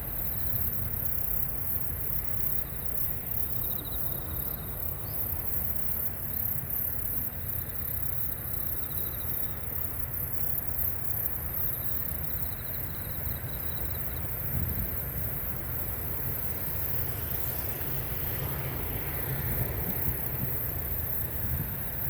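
Outdoor ambience: a steady low rumble with short, faint insect trills repeating every few seconds.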